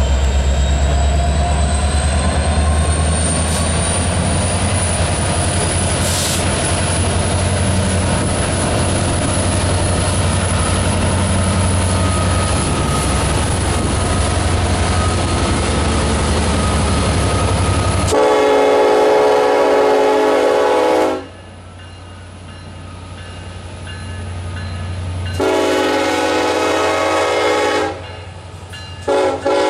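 Diesel-electric locomotives of a freight train passing close by, their engines rumbling with a high whine above. About two-thirds of the way in, a locomotive air horn blows two long blasts, a short one and another long one: the standard grade-crossing signal.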